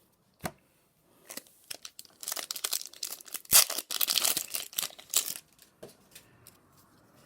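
A trading-card booster pack wrapper being torn open and crinkled, in a run of crackling tears lasting about three seconds, loudest in the middle. A single click comes about half a second in.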